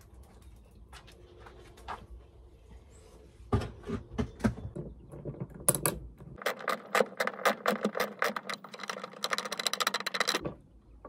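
Socket ratchet wrench clicking as a van seat's mounting bolt is undone, in fast runs of clicks for about the last four seconds. A few loud knocks come shortly before the ratcheting starts.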